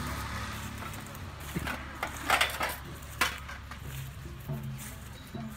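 Tableware clinking and clattering: a few sharp knocks and clinks, the loudest about two and a half seconds in, over a low hum that fades during the first second.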